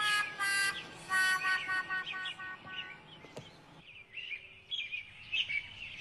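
Birdsong: a run of short, high chirps and whistled notes, louder in the first half and fainter and sparser after about three seconds.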